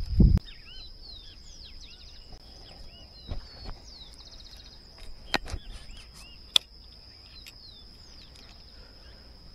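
Birds chirping over a steady high-pitched insect drone, with a few sharp clicks and knocks around the middle.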